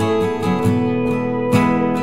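Acoustic guitar music: plucked notes and chords in a steady pattern, with a new chord struck about a second and a half in.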